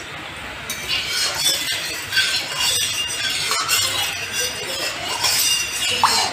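Mustard oil heating in an aluminium kadai, sizzling and crackling unevenly as it gets hot enough to fry fish, with a metal spatula stirring and scraping through it. There is a short rising squeak near the end.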